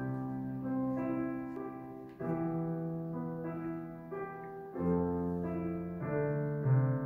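Instrumental intro of a keyboard backing track, playing sustained piano-like chords. A new chord comes in about two seconds in and again near five seconds.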